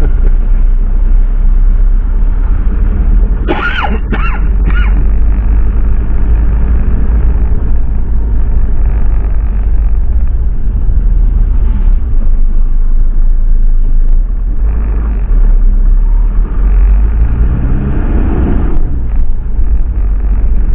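Van engine and road rumble heard from inside the cab while driving, a heavy low drone throughout. A few short sharp sounds come about four seconds in. Near the end the engine note rises as it accelerates, then breaks off.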